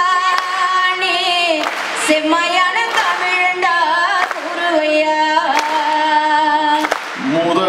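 Singers performing a Tamil folk song, the woman's voice leading with long held notes, with occasional sharp strikes on a parai frame drum.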